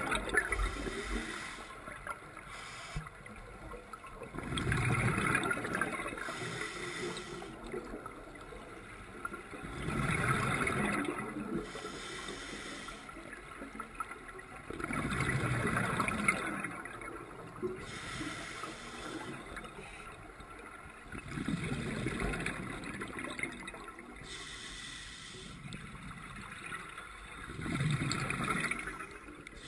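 Open-circuit scuba diver breathing on a regulator, heard through an underwater camera housing. Five swells of exhaled bubbles gurgle out about every five to six seconds, with quieter stretches between.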